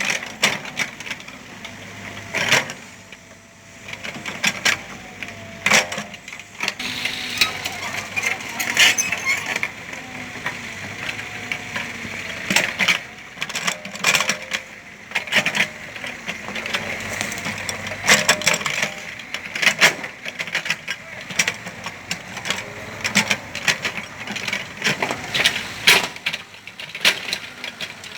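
Mini excavator working ground: its engine running under frequent, irregular clanks and knocks.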